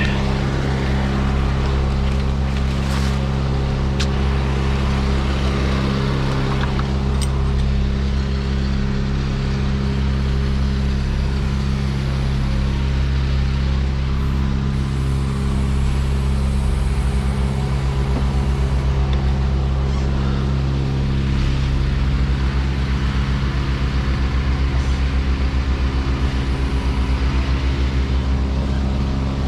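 A heavy machine's engine runs steadily at constant speed, with a few light knocks in the first several seconds.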